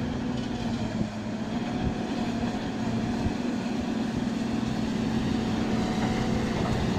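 Wheel loader's diesel engine running steadily under load while it pushes deep snow with a V-plow, a steady low drone.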